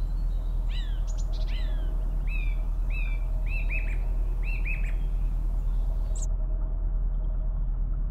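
A narrowboat's engine runs steadily with a low, even drone. Over it a bird gives a run of short chirps that slide downward, between about one and five seconds in.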